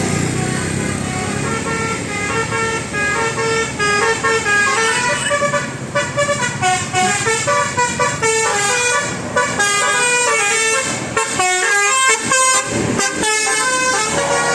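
Bus telolet horn, a multi-tone musical air horn with roof-mounted trumpets, playing a fast melody of short, stepped notes that change pitch several times a second.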